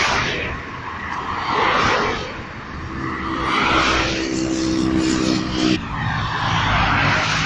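Cars driving past one after another, each one swelling and fading as it goes by. From about three seconds in, an engine holds a steady drone for a few seconds, then cuts off suddenly.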